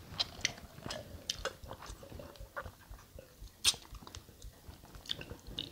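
Chewing and eating at close range, with scattered sharp clicks and one louder click a little past halfway.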